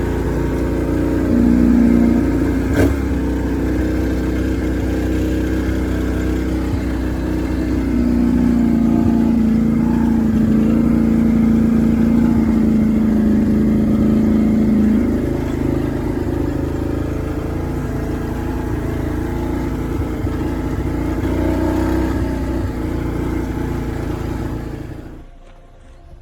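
Motor vehicle engine running at a fairly steady speed, a low even hum with small shifts in pitch and load, cutting off abruptly shortly before the end.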